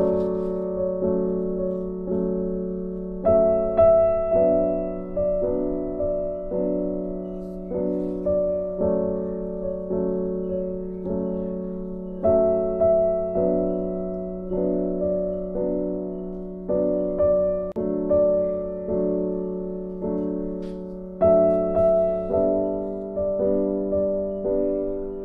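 Background piano music: slow, gently struck notes that each fade away, over a held low note, with a new phrase beginning about every nine seconds.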